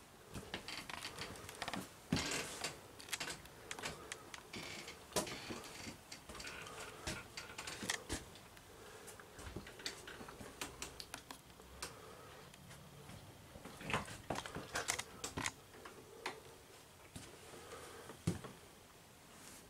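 Irregular light clicks and knocks from someone walking through a travel trailer's interior with a handheld camera: footsteps on the trailer floor and handling noise, in a small room.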